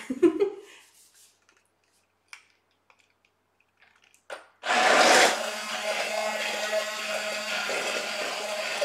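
A few light clicks, then about halfway through a handheld immersion blender switches on. It runs steadily as it purees thick pumpkin soup in the pot, blending in the miso.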